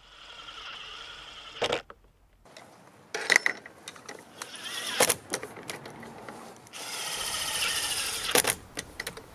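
Cordless drill-driver running in short spells as it drives screws into a plastic gate-latch striker, with sharp clicks and knocks between the runs.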